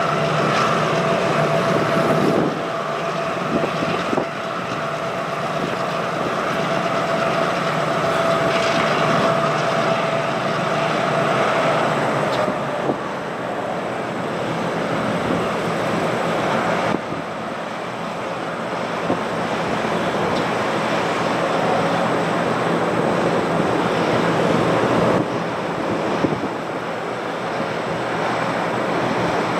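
EMD SW1500/MP15 switcher locomotives' diesel engines running as a loaded hopper train rolls slowly over a steel bridge, with steady rail and wheel noise. A steady whine sounds for about the first twelve seconds.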